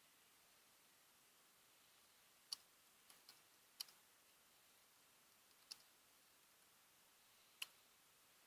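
A few isolated computer keyboard keystroke clicks, about six short taps spread unevenly over near silence.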